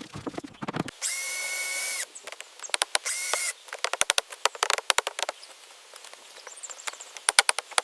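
Quick runs of sharp clicks and taps from sped-up building work, broken by a hiss carrying a high steady tone about a second in and a shorter one about three seconds in.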